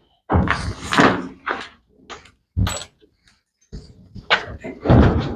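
A string of irregular knocks and thumps as a washing machine's cabinet is handled and turned over, the loudest in the first second and again near the end.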